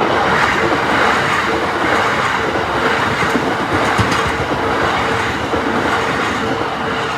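A Tobu Nikko Line train passes over a level crossing, its wheels and cars rumbling and clattering loudly from the start, easing slightly near the end. The crossing's warning bell keeps ringing underneath.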